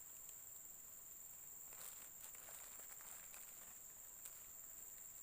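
Faint steady high-pitched drone of forest insects, with soft rustling and small clicks in the middle.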